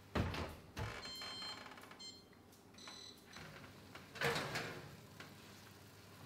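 Built-in oven door shut with a knock, followed by a few short electronic beeps from the oven's controls. About four seconds in, a louder scrape as the baking pan is pulled out over the metal oven rack.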